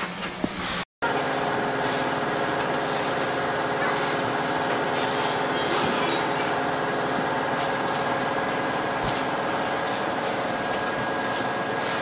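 Steady machinery hum with several fixed pitches, broken by a split-second gap about a second in.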